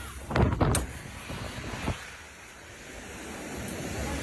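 Gusty wind from a nearby waterspout buffeting a phone microphone over the noise of surf. A few heavy thumps of wind hit the mic about half a second in, another near two seconds, then a steady rush that grows louder toward the end.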